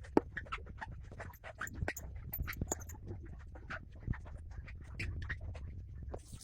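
Small irregular clicks and taps of tools on the metal parts of a 1953 Tissot watch as it is worked on by hand, with one sharper click at the start, over a low steady hum.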